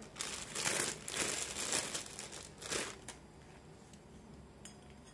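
Clear plastic wrapping bag crinkling in a run of rustles as a hand blender's stainless steel shaft is pulled out of it, for about three seconds. After that it goes quiet, with a faint click near the end.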